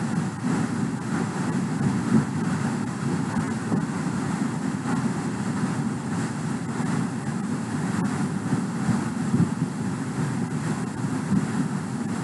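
Steady low rumbling background noise with no clear pitch.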